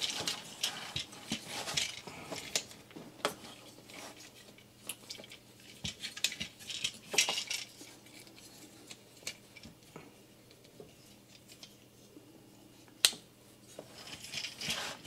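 Plastic Transformers action figure being handled and transformed: scattered small clicks and snaps as its joints and parts are moved, with a sharper snap about thirteen seconds in.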